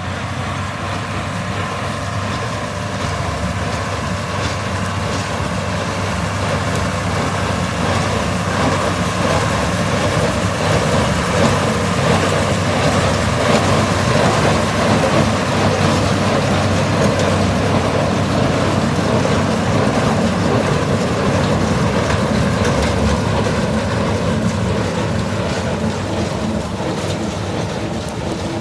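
Tractor and Welger AP830 conventional square baler running, a steady mechanical din that grows louder toward the middle and eases slightly near the end.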